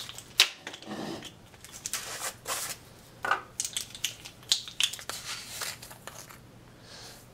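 Irregular light clicks and clatter of plastic measuring spoons and a plastic salt container being handled while half a teaspoon of salt is measured out, dying down near the end.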